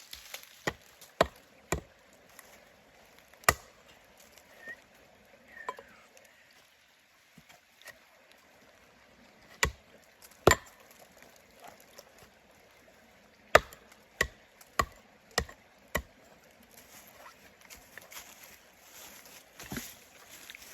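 Sticks and logs being struck to break them up: sharp wooden knocks at uneven intervals, with a quick run of five evenly spaced blows about two-thirds of the way through.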